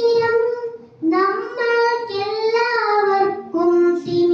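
A young girl singing solo and unaccompanied, holding long, steady notes in phrases, with a short pause for breath about a second in.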